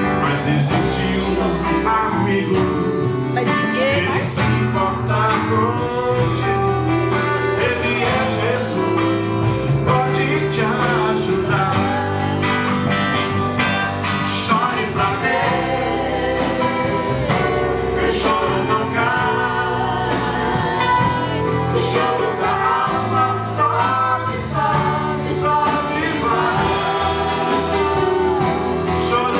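Music: a gospel song sung over guitar accompaniment, with low bass notes changing every second or two.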